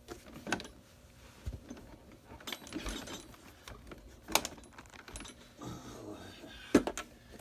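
Small metal hardware, a washer and nut, clinking against the pedal go-kart's wheel axle as it is fitted by hand. Three sharp metallic clinks, the last the loudest, with light rattling and handling noise between them.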